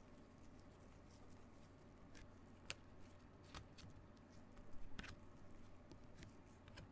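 Faint clicks and slides of stiff chromium trading cards being moved one at a time off a stack by gloved hands, over a low steady hum; a handful of light ticks, the sharpest about a third of the way in and a small cluster near the end.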